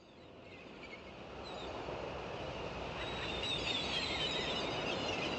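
Outdoor nature ambience fading in: a steady background hiss with small birds chirping, the chirps growing busier from about three seconds in.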